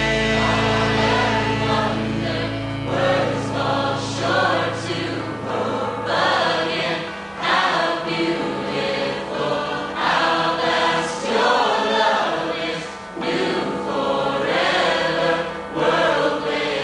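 Music with a group of voices singing, in the style of Christian gospel music, over a sustained low note that fades out about two seconds in.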